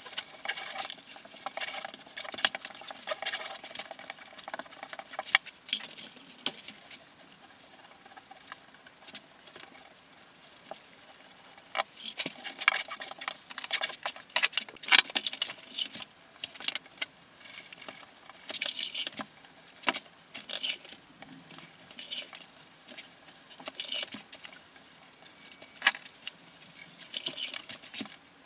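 Grout float and sponge worked by gloved hands over a hexagonal mosaic tile shower floor, grouting and cleaning off the grout: irregular scraping and rubbing broken by sharp ticks and taps, in uneven clusters.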